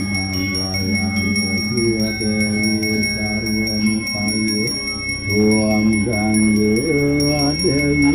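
Balinese genta (bajra), a brass priest's hand bell, rung without a break in a steady high ringing, under a man's voice chanting a mantra in long, held, melodic phrases.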